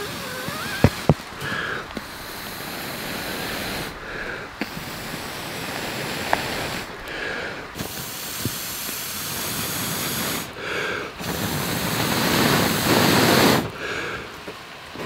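A person blowing long, steady breaths into smouldering wood-shaving tinder to coax it into flame. There are about five blows with short pauses for breath between them, and the last is the loudest. A couple of sharp clicks come about a second in.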